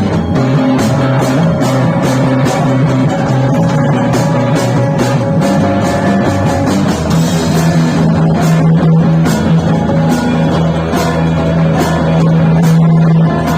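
Loud psychedelic krautrock-style rock band jamming live: distorted guitar and bass over a steady drum beat with evenly spaced cymbal and drum hits. About halfway through, a low droning note settles in and holds.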